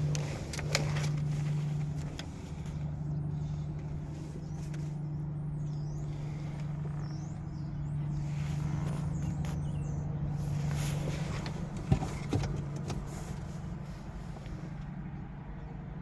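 Steady low engine hum from a running vehicle nearby, with two sharp clicks about twelve seconds in and faint high chirps in the middle.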